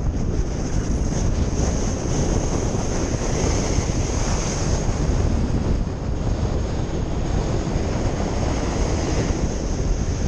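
Wind rushing over the microphone of a paraglider's harness camera in flight: a steady rumbling roar of airflow with a high hiss above it.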